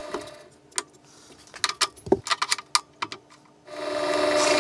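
Metallic clicks and rattles at a drill press chuck while it stands still, as the countersink bit is swapped for a drill bit. About three-quarters of the way in, the drill press motor starts and runs with a steady hum.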